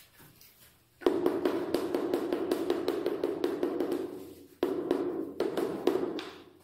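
Rapid tapping of a rubber mallet on a large ceramic floor tile, bedding it down into the combed tile adhesive. Two quick runs of taps with a hollow ring, broken by a short pause about four and a half seconds in.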